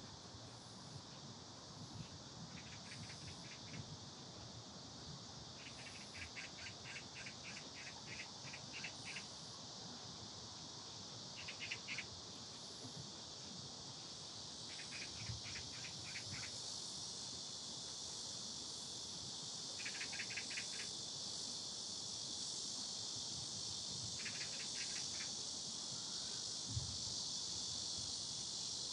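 Summer cicadas buzzing in a steady high drone that grows gradually louder. Every few seconds a short burst of rapid pulsed chirping from another insect cuts in.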